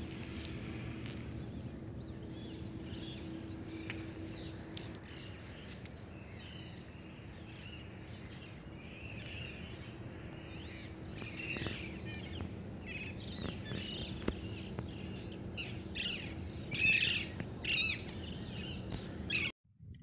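Many birds chirping with short, repeated calls over a steady low hum, the calls loudest near the end. All sound cuts off suddenly just before the end.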